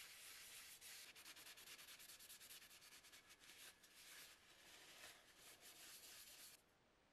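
Paper towel rubbed briskly over a small metal oil bottle in gloved hands: a faint, dry scrubbing hiss with many quick strokes that stops abruptly near the end.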